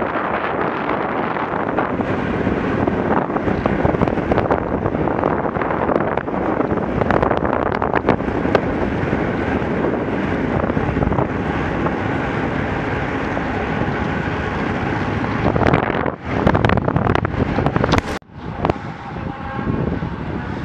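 Wind buffeting the microphone of a camera riding on a moving velomobile: a steady rush that swells into loud gusts and cuts out for a moment near the end.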